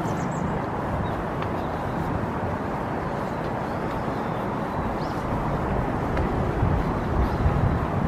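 Steady outdoor ambience with a low rumble, with a few faint high chirps.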